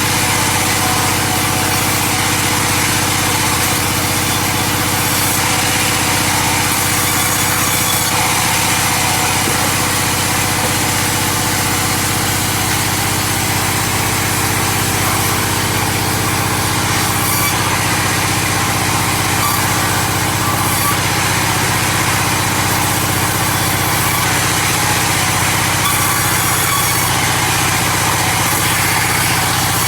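Sawmill engine running steadily at a constant speed, with a dense hiss over it and no change in load.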